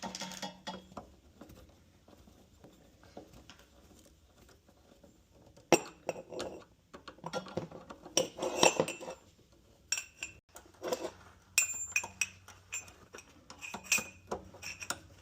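Metal tools and parts clinking and knocking against each other and the water heater during repair work, in scattered sharp clicks with a short metallic ring. It is quiet for the first few seconds, then the knocks start and come thicker toward the end.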